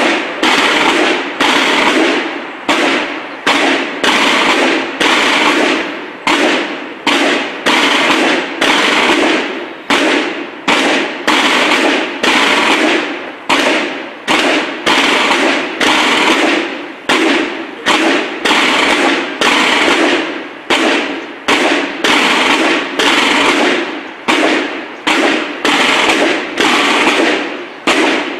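Marching snare drums of a military drum-and-bugle band (banda de guerra) beating a steady march cadence: a loud accented stroke about three times every two seconds, each followed by a rattling decay.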